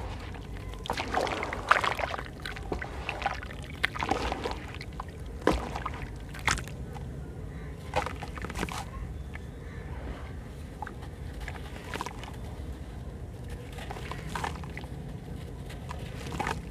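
Wet sand-cement chunks crushed by hand over a basin of water: irregular gritty crunches, with crumbs and powder splashing into the water and the water sloshing as lumps are dipped.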